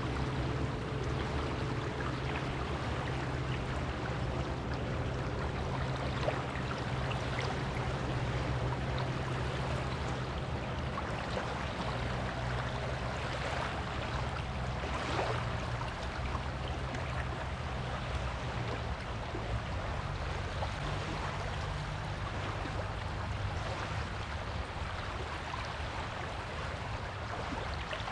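Surf washing on a beach: a steady, even wash of water with a constant low rumble underneath.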